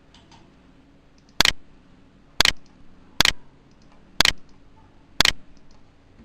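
Five sharp computer mouse clicks, about one a second, each a quick double snap.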